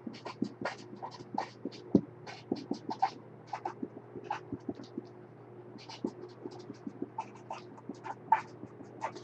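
Irregular light clicks and taps, several a second with short gaps, over a steady low electrical hum.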